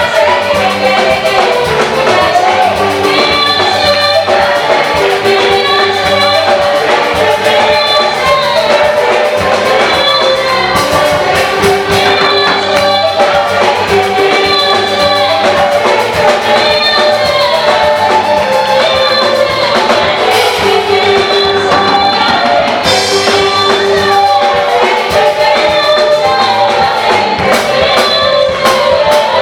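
Live African gospel music: a group of voices singing in harmony over a band with drums, with held, stepping sung notes and a steady beat.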